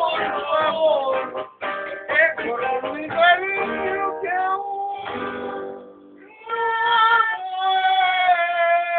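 A man singing a song through a microphone over backing music, ending on one long held note that begins about six and a half seconds in.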